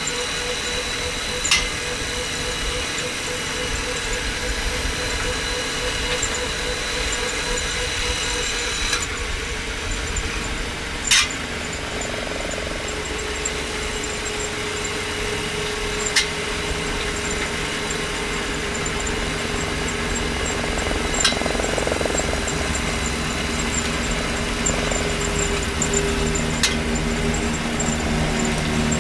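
Homemade electric rail vehicle rolling along steel rails: a steady rumble of its small wheels on the track under a faint electric-motor whine, with a sharp click about every five seconds as the wheels cross the rail joints.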